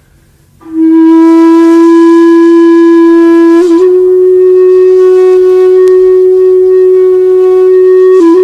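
A wind instrument sounds one long held note, starting about a second in, with a brief wobble in pitch in the middle and again near the end.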